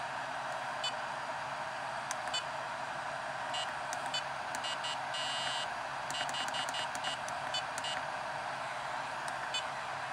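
Gens Ace D300 LiPo charger beeping at each button press while its charge current is being adjusted: a series of short high beeps, some in quick runs, with one longer beep about five seconds in. Underneath runs the steady whir of the charger's cooling fan, on while it charges at high current.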